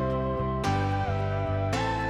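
Background music only: calm instrumental music with sustained chords, a steady bass pulse and a slow melody gliding between notes.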